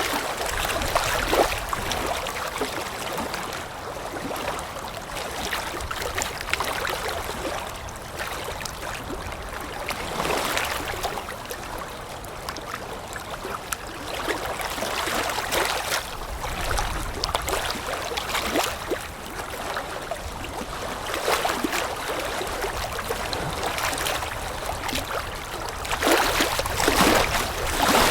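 Water lapping in the wind: small splashes come in uneven swells every few seconds over a steady low wind noise.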